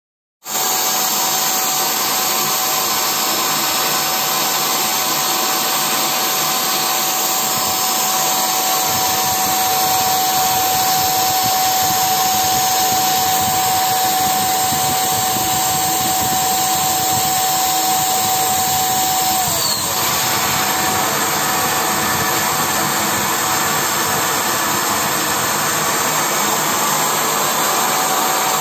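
Buildskill Pro handheld electric paint sprayer running, spraying a fine mist: a steady rush of air under a steady whine. About twenty seconds in, the whine's pitch dips briefly and then recovers.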